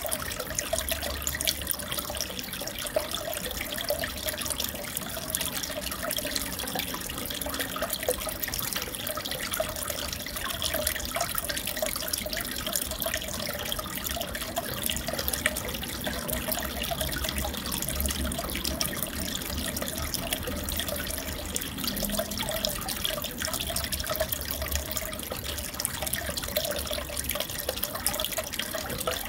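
Aquarium water trickling and splashing steadily, with many small drips and crackles.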